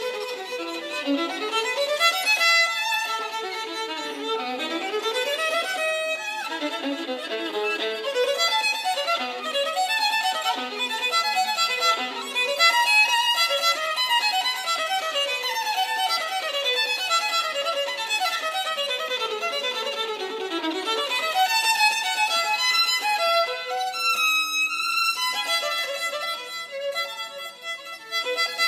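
Solo violin played unaccompanied in fast running passages, strings of quick notes sweeping up and down the instrument.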